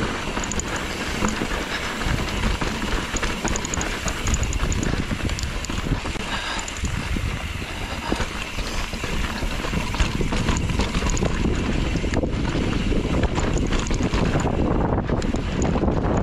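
Wind buffeting the microphone of a camera carried on a moving mountain bike, with the bike rattling and clattering over a rough trail.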